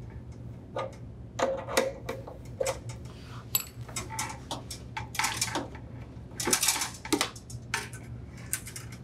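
A half-inch wrench working the refrigerator's main water line fitting loose: a run of irregular metallic clicks, taps and clinks as the fitting is turned and the line pulled free.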